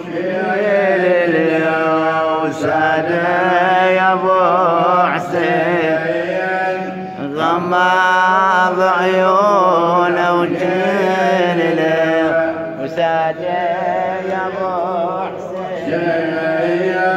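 A man's solo voice chanting an Arabic Shia noha (lament), with long wavering held notes in phrases a few seconds long and short breaks between them.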